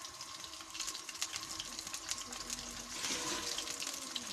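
Masala-coated fish pieces shallow-frying in hot oil in an iron karahi: a steady sizzle with a dense crackle of popping oil.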